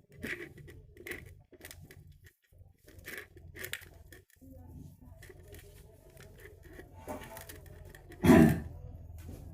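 Hands kneading and working wet wheat-flour dough, with irregular short sticky clicks and smacks. A brief voice sounds near the end.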